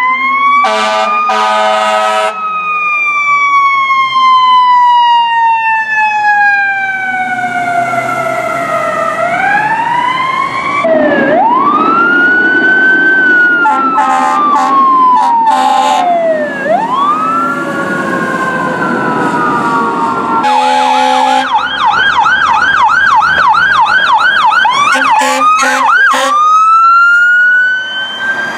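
Fire truck sirens in several back-to-back clips: long wails rising and falling in pitch, then a fast up-and-down yelp. Short blasts of air horns come near the start, in the middle and near the end, over the rumble of the trucks' engines passing.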